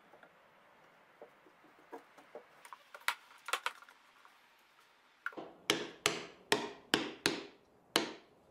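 Scattered light clicks and knocks, then from about five seconds in a run of seven sharp knocks, about two a second: a wooden mallet tapping a board down into place on a wooden toolbox.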